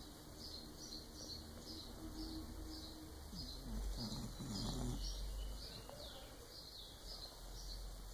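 A sleeping dog snoring, low and rough, with one louder snore about four seconds in. Over it a bird chirps steadily, about twice a second.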